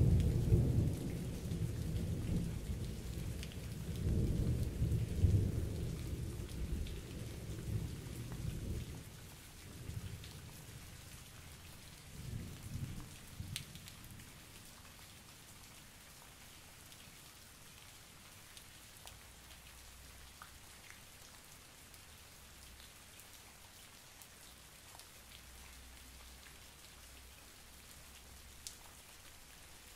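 Thunder rumbling for the first nine seconds or so, with a shorter rumble around twelve seconds in, then dying away. Under it, steady rain falls with scattered drips.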